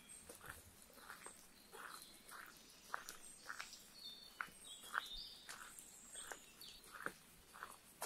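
Faint, steady footsteps on a wet dirt path, about two steps a second, with small birds chirping and calling high in the trees.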